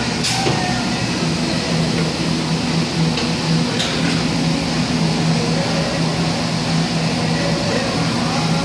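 Rotary aluminium-can filling and seaming machine running with a steady low hum, with two sharp clicks, one near the start and one about four seconds in.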